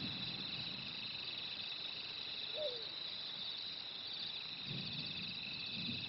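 Night insect chorus: crickets trilling steadily in two high, pulsing bands, with a single brief falling chirp about two and a half seconds in.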